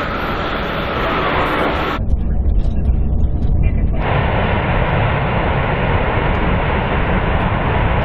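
Airbus A380 jet engines on the runway: a loud, steady rumble with a rushing hiss. The sound changes abruptly about two seconds in, dropping to a deeper rumble, and again about four seconds in, when the fuller roar returns.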